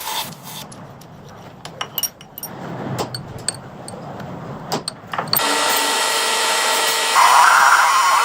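Workshop machine-tool sounds: scattered sharp clicks and knocks, then about five seconds in a power tool starts running steadily with a whine, louder near the end.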